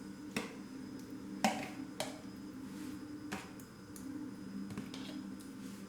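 A handful of light clicks and taps of a kitchen utensil against a dish while food is spread in it, over a steady low hum.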